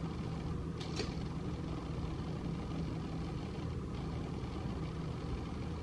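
A drink can's pull tab being opened, a short faint crack and hiss about a second in, over a steady low mechanical hum.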